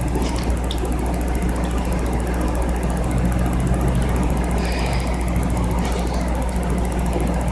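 A steady low hum runs throughout, with a few faint rustles and taps as the phone is moved about against clothing.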